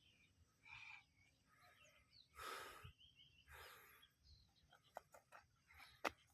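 Near silence: a few faint rustling swishes, then several soft clicks near the end.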